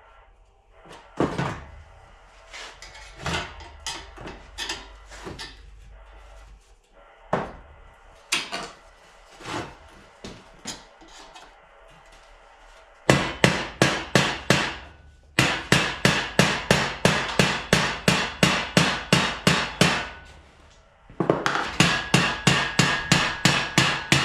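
Hammer striking steel in repair work on a car body's sub rail. A few scattered single blows come first, then from about halfway fast, even runs of about four blows a second, broken by two short pauses.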